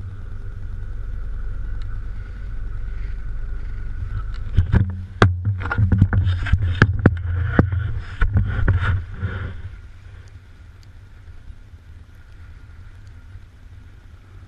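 Muffled handling noise from a GoPro in its waterproof housing on a pole. A steady low rumble, then a run of sharp knocks and heavy thumps as the camera is swung down toward the water beside the boat's hull, settling back to a quieter rumble after about ten seconds.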